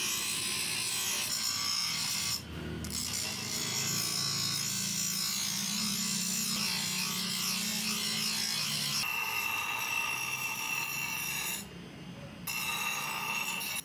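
Electric bench grinder's abrasive wheel grinding a steel knife blade: a steady, harsh rasp that shifts in pitch as the blade is pressed and moved across the wheel. It dips briefly about two seconds in and again near the end as the blade comes off the wheel. A steady whine joins from about nine seconds.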